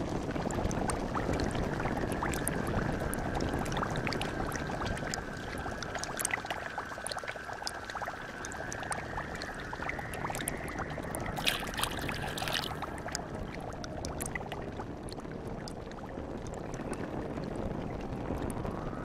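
A pot of thick liquid chocolate bubbling on a stove, with a steady stream of small pops. About twelve seconds in there is a brief, louder pour.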